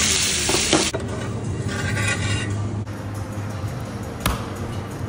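White anchovies sizzling as they fry in oil in a steel pan, loudest in the first second and fading out. About four seconds in comes a single sharp thump: a fist smashing a red onion on a stone counter.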